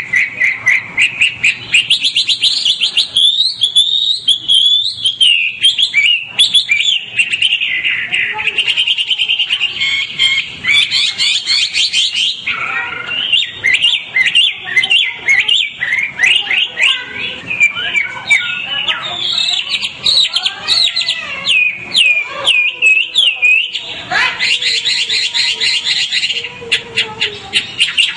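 White-rumped shama singing without pause: a rapid, ever-changing stream of clear whistles, fast trills and chattering notes.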